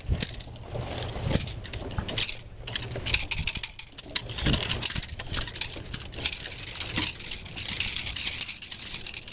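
Feet scuffing and sticks scraping and tapping on a dirt field, with scattered clicks and rattles, from protection-sport helpers making distractions around a heeling dog.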